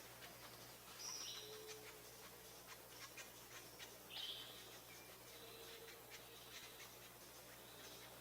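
Faint bird calls: two short, high chirping calls, about a second in and about four seconds in, over a quiet background of faint scattered ticks.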